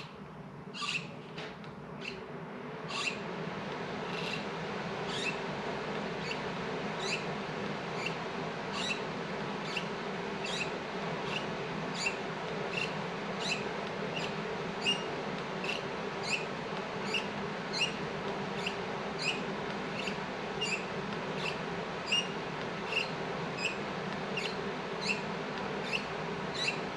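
Front brake lever on a 1979 Harley-Davidson Shovelhead being pumped to work fresh fluid through a rebuilt master cylinder, with a short squeaky click at each stroke, a little more than one a second, over a steady low hum.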